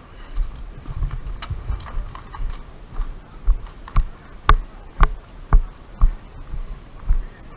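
Footsteps of a walking person, heard from a body-worn camera: steady thuds about two a second, each with a sharp click, clearest from about three seconds in.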